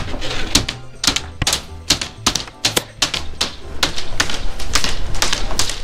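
Footsteps crunching through packed snow: a quick, irregular run of sharp crunches, about two to three a second.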